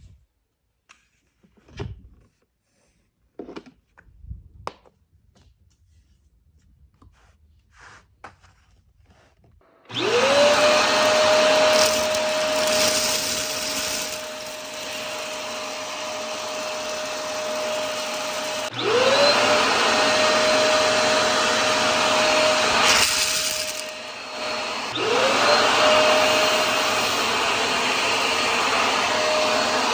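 Bruno BVC-2312 corded 2-in-1 vacuum cleaner with a 600 W motor. After a few light clicks and knocks, the motor starts about a third of the way in with a rising whine and then runs steadily. The whine drops out and spins up again twice more.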